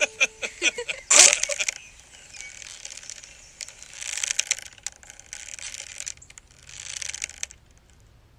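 Sound effects with no music: a few sharp clicks, then a loud crunching crack about a second in, the snap of the hanging rope drawing tight. Two swells of rasping noise follow, around four and seven seconds in.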